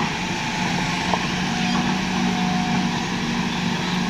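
Hitachi crawler excavator's diesel engine running steadily with an even low hum.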